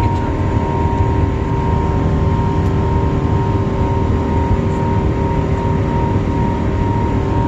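Airbus A380's four turbofan engines running at steady high power: a deep, even rumble with a steady whine held on top.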